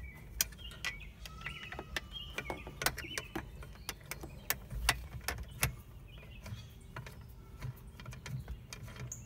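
Scattered sharp clicks and taps of a hand nut being fitted and threaded up into a Jeep roof crossbar by hand, with a few birds chirping during the first few seconds.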